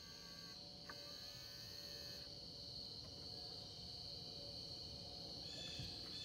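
Faint, steady high-pitched insect chorus, a continuous trill.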